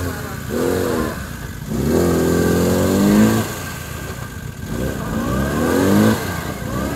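Lada Niva's four-cylinder engine revving hard in three bursts, the longest in the middle, as the car churns through deep mud with the wheels spinning; it is bogging down and not making it through.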